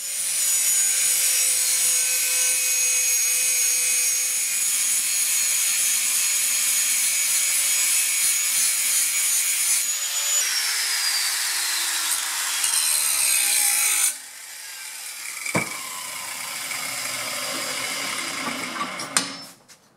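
Handheld angle grinder grinding the steel end of a lawn mower blade clamped in a vise, taking metal off the heavy side to balance the blade. The loud, steady grinding drops off suddenly about 14 seconds in, leaving a quieter whirring and scraping with a single knock, which fades shortly before the end.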